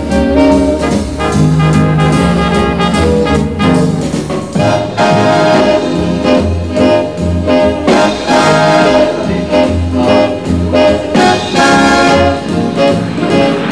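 Background music led by brass instruments, with sustained chords over a low bass line that changes to separate repeated bass notes about five seconds in.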